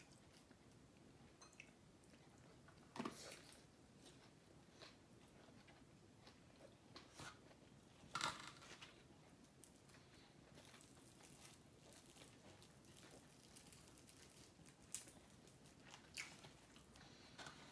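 Quiet chewing of crispy fried chicken, with a few sharper crunching bites spread through.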